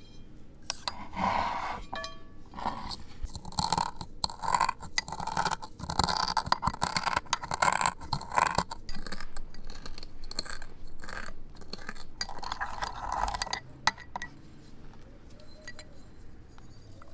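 Brass pestle pounding and grinding coriander and cumin seeds in a small brass mortar: rapid metallic clinks over the crunch of cracking seeds. It stops near the end.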